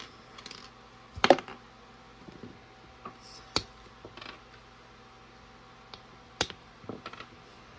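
Scattered small clicks and taps of LEGO pieces being handled, as thin tires are fitted onto silver plastic rims; the loudest click comes about a second in, with a few lighter ones later.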